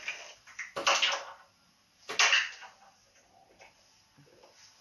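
Eggs being cracked into a glass baking dish: two sharp knocks of eggshell against hard kitchenware, about a second in and again a little over a second later, then only faint small clicks.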